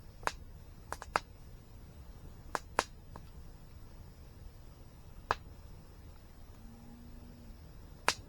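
Wood campfire crackling: about seven sharp, irregular pops, the loudest near the end, over a low steady rumble.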